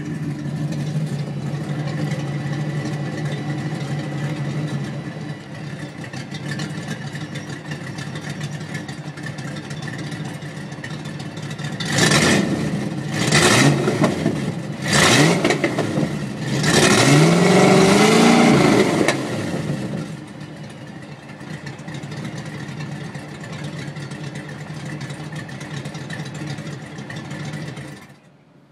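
1992 Ford Mustang LX 5.0 V8 idling with an exhaust leak at the headers. About twelve seconds in it is blipped three times, then held up in the revs for a few seconds before settling back to idle. The sound cuts off sharply near the end.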